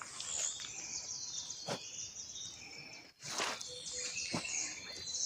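Dense, high-pitched chirping of unseen animals up in the trees, many quick calls overlapping, with a few sharp clicks among them.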